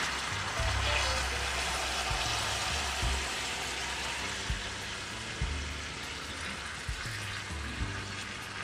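Beef chuck roast searing in oil and Worcestershire sauce in a frying pan, sizzling steadily. A few sharp clicks come in the second half as tongs lift and turn the meat.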